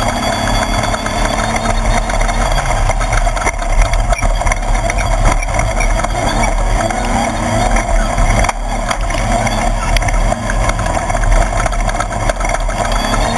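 Class 1/2-1600 off-road buggy with its 1600 cc air-cooled VW flat-four running steadily under way, with frequent short knocks and rattles over rough ground.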